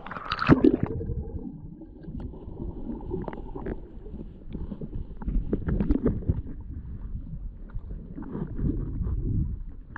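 Stream water splashing and sloshing: a sharp splash about half a second in, then irregular low sloshing with scattered knocks.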